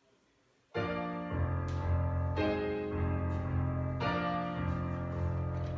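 Piano music for a ballet class starts abruptly under a second in after near silence. It plays sustained chords that change about once a second.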